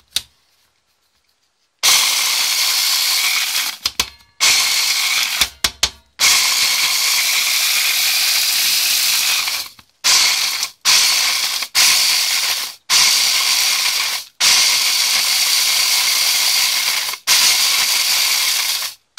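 Electric mini chopper grinding dried apple slices into powder, a bit noisy. It starts about two seconds in and runs in a series of pulses of one to four seconds, with short stops between.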